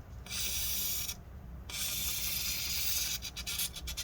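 Aerosol can of WD-40 silicone spray hissing in two long bursts, then a few short spurts near the end, flooding a squeaking laptop fan with lubricant.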